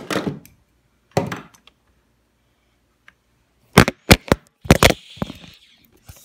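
Sharp wooden knocks from a kendama. Its red ball hits the laptop keyboard at the start and again about a second later, then there is a quick run of clattering knocks about four seconds in as the toy falls onto a wooden floor.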